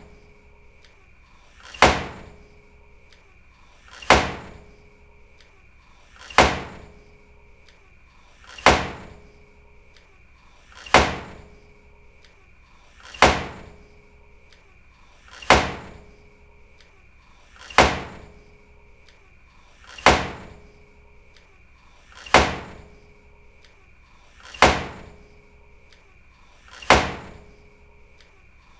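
A door slammed shut hard, twelve times at even intervals of a little over two seconds. Each slam is a sharp bang with a short reverberant tail.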